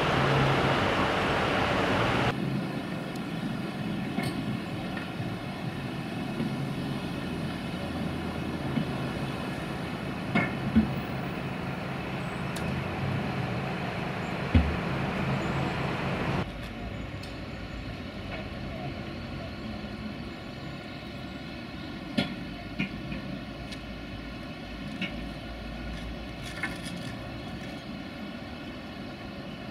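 Heavy vehicle machinery running steadily with an even hum of several tones, after a loud hiss that cuts off about two seconds in. A few short, sharp metallic knocks sound over it, and the machine gets quieter about halfway through.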